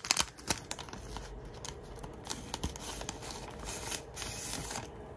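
Clear plastic bag crinkling and a paper napkin rustling as hands pull the napkin out of the bag, in scattered crackles that are thickest in the first second.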